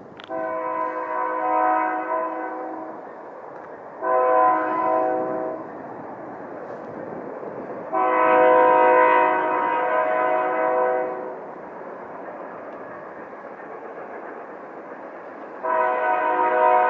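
Locomotive air horn sounding a steady chord in four blasts: a long one, a short one, another long one and a fourth long one near the end, over a steady background noise.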